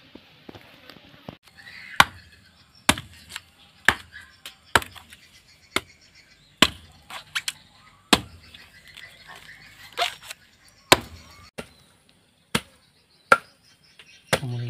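Blade chops into a green coconut's fibrous husk to split it open: about a dozen sharp, separate blows, roughly one a second.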